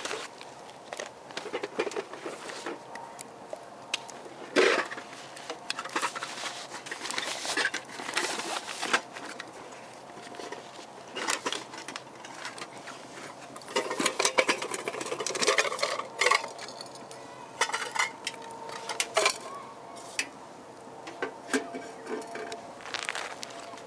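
Wood fire crackling and popping in a homemade ammo-can wood stove burning sticks: irregular sharp cracks and clicks, busiest around five seconds in and again from about fourteen to nineteen seconds in.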